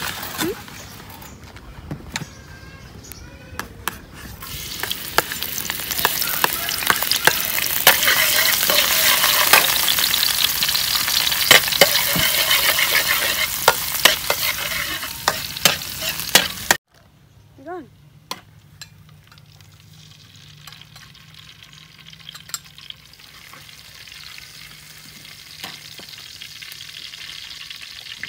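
Chopped garlic sizzling in hot oil in a steel wok, with a metal spatula clinking and scraping against the pan as it is stirred. The sizzle builds over the first few seconds, cuts off suddenly a little past halfway, and a much fainter hiss with a low hum follows.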